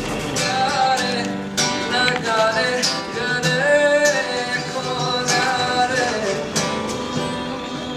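Acoustic guitar strummed every second or so, with a man singing a slow melody over it.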